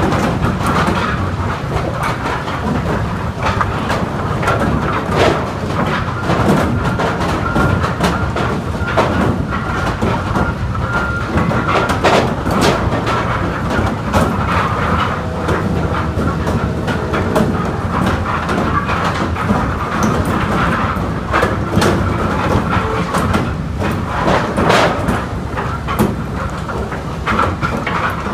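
Hydraulic lumber tipper and incline conveyor running, with a constant irregular clatter and knocking of wood pieces sliding out of the tilting basket onto the conveyor, over a steady machine drone with a faint whine.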